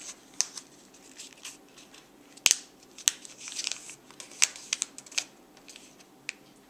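A sheet of paper being folded and creased by hand: soft rustling and crinkling broken by many short, sharp ticks, the two sharpest about two and a half and three seconds in.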